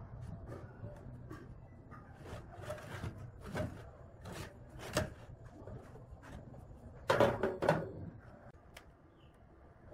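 A welded steel square-tube frame and its hinged legs being folded and handled against a plywood seat on a metal workbench: scattered light metal clicks and wooden knocks, with a louder clatter about seven seconds in as the assembly is set down.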